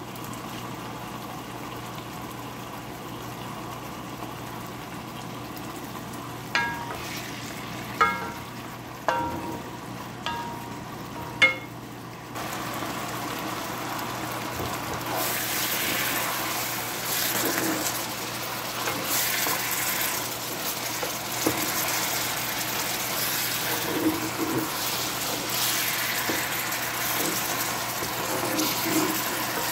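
Soy sauce, fish and sliced onion simmering in a frying pan, with a few short ringing clinks against the pan a little before halfway. From about halfway the sizzling grows louder and uneven as the pan is stirred with a spatula.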